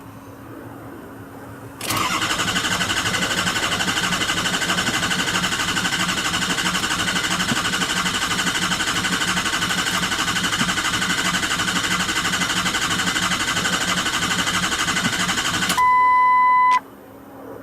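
Starter cranking a 2003 Ford F-250's 6.0L Powerstroke V8 diesel steadily for about fourteen seconds without the engine catching: a crank-no-start. It cuts off suddenly, and a loud one-second high beep follows near the end.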